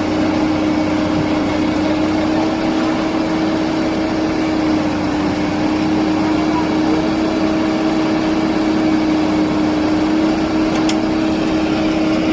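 Heavy diesel engine running steadily at constant speed, a steady hum with engine noise, with one faint short click about eleven seconds in.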